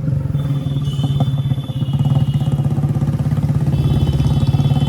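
Hero Splendor motorcycle's single-cylinder four-stroke engine running steadily with an even firing pulse.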